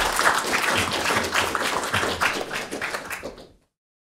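Audience applauding, many hands clapping together, cut off abruptly about three and a half seconds in.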